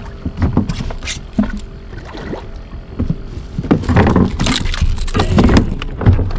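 Irregular splashing and knocking as a hooked spotted seatrout is fought in and brought up beside a fishing kayak, louder and busier in the second half.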